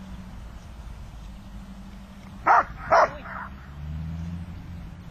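Brindle Dutch Shepherd dog barking twice, two short loud barks about half a second apart.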